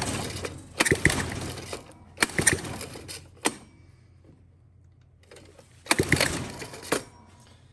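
Recoil pull starter on a rebuilt Honda TRX90 single-cylinder four-stroke engine, pulled several times in strokes of about a second each, with a pause of about two seconds near the middle. The engine turns over against a firm compression stroke, the hard spot of a healthy rebuilt engine, without firing.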